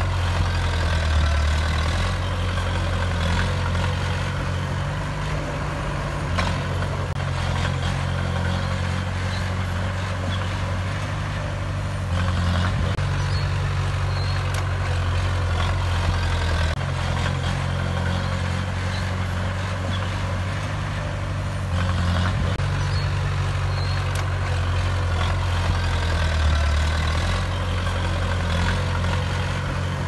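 Small crawler bulldozer's diesel engine running steadily under load as it pushes dirt, its low note stepping up and down a few times, with occasional short knocks.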